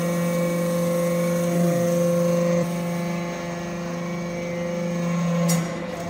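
Hydraulic metal-chip briquetting press running, a steady mechanical hum with a strong low tone. The hum drops a little in level about two and a half seconds in, and a brief knock sounds near the end.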